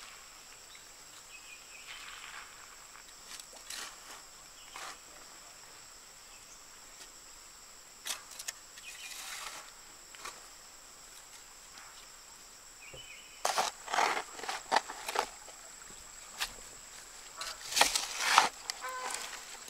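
Long-handled digging tool chopping and scraping into loose clay soil: scattered dull strikes, with quick clusters of the loudest blows about two-thirds of the way through and again near the end. A steady high insect buzz runs underneath.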